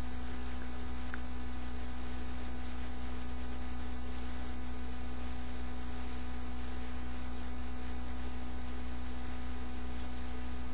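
Steady electrical hum with an even hiss, unchanging throughout: mains hum and noise on the recording, with no other sound.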